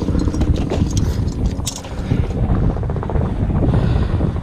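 Wind buffeting the microphone, a loud, uneven low rumble, with a few short knocks and clicks about half a second to two seconds in.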